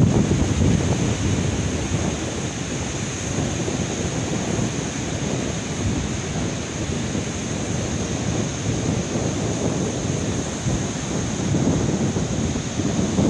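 Surf breaking and washing up a sandy beach, with wind rumbling on the microphone.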